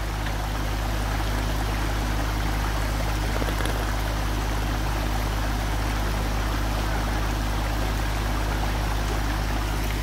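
Muddy, swollen river water rushing steadily over rocks, with a steady low drone underneath from a mini excavator's diesel engine running.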